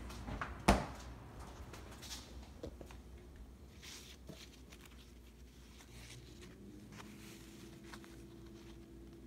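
A refrigerator door thumps shut less than a second in, followed by faint scattered taps and rustles of handling.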